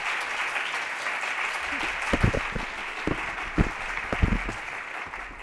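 Audience applause that thins out near the end, with a few dull thumps partway through.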